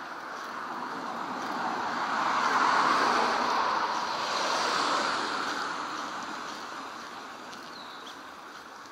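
Road noise of a car passing on the road alongside, a steady rushing hiss that swells to a peak a few seconds in and then fades as it draws away.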